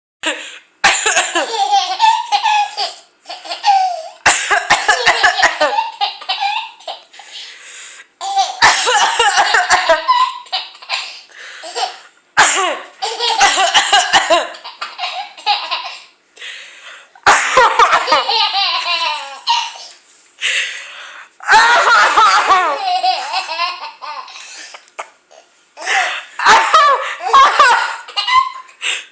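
A woman coughing and a baby laughing in reply to the coughs, in about seven bursts of laughter with short pauses between.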